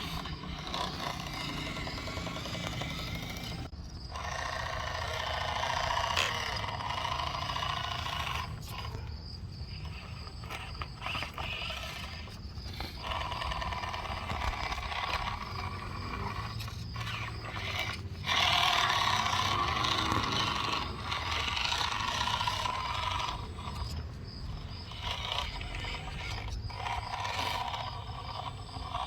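Electric drivetrain of an FMS Atlas 6x6 RC truck whining and grinding through its gears in repeated spurts of a few seconds, stopping and starting again. The transmission was already making noise, and the owner is running it until it fails.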